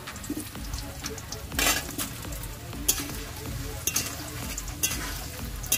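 Potato cubes sizzling as they fry in hot oil in a steel kadai, with a metal ladle scraping and knocking against the pan as they are stirred. The longest scrape comes a little under two seconds in, with shorter knocks at about three, four and five seconds.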